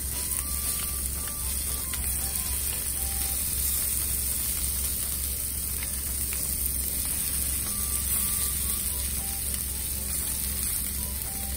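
Chicken thigh pieces sizzling in oil in a frying pan, with a few light ticks as they are turned over with chopsticks. A steady low hum runs underneath.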